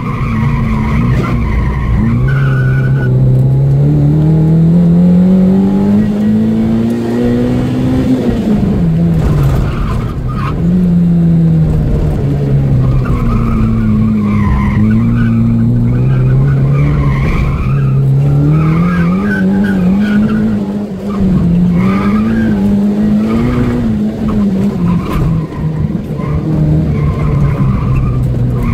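Opel Astra GSi's engine heard from inside the cabin on a hard lap, revs climbing for several seconds, dropping sharply about eight seconds in, then rising and falling through a series of corners. Tyres squeal in the corners.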